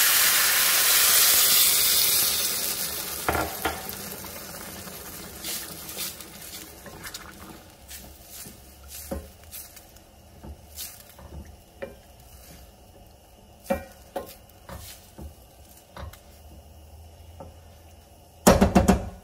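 Chicken broth just poured into a hot stainless steel skillet of toasted rice, onion and tomato sizzles loudly, the hiss dying away over the first few seconds. Then a wooden spatula stirs the rice, with scattered light taps against the pan and a brief loud clatter near the end.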